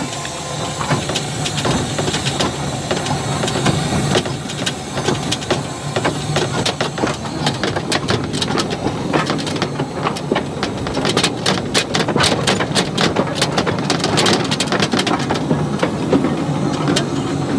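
15-inch gauge 2-6-2 steam locomotive No. 24, modelled on a Sandy River & Rangeley Lakes engine, running along the line, heard close up from its side: a steady rumble and hiss with rapid clicking and clattering of the wheels and motion, thickest in the middle.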